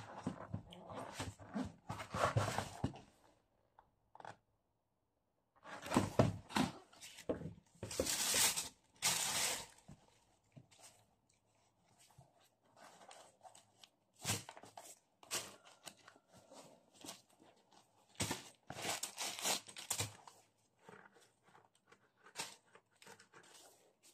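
Unboxing handling noise: a cardboard shoebox being opened, with tissue paper rustling and crinkling in irregular bursts and a few sharp knocks as a sneaker is moved about in the box. There is a quiet pause of a few seconds near the start.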